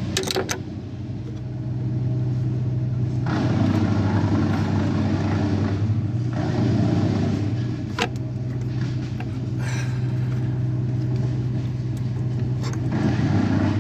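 A motor running steadily with a low hum, growing louder for a few seconds at a time, with a couple of sharp clicks.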